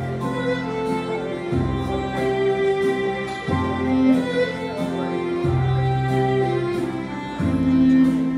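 Electronic keyboard playing dance music: sustained melody notes over a bass that changes about every two seconds, with a light percussion beat about twice a second.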